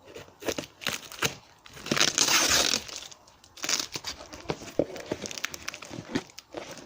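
Brown packing tape being cut and torn off a cardboard box, with packaging crinkling and cardboard rustling; the loudest part is a long rip about two seconds in.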